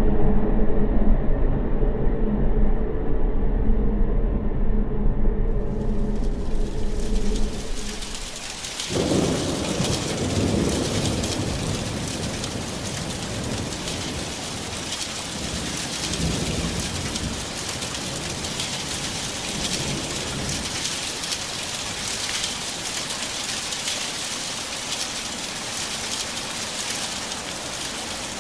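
Added thunderstorm sound effect: a rain hiss fades in about six seconds in, and from about nine seconds there is steady heavy rain with low rolling thunder. It follows a low rumble with steady hum tones that fades out.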